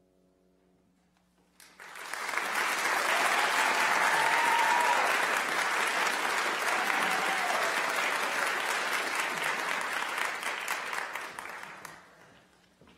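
Audience applause, breaking out about a second and a half in, holding steady, then dying away near the end.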